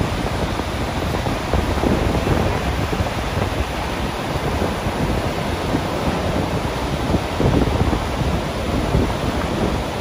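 Large waterfall rushing over its brink, a steady, dense noise of falling water heavy in the low end.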